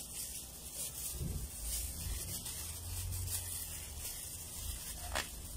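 Clear plastic sheet rustling and rubbing as hands adjust it around coco fiber wrapped on a rubber plant branch, with one short sharp tick about five seconds in.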